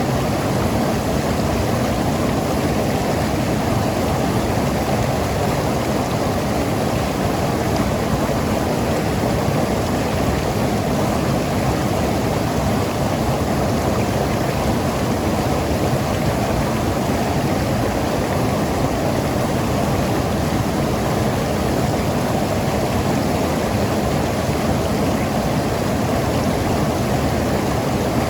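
Mountain river rushing and gurgling over rocks: a steady, dense water noise.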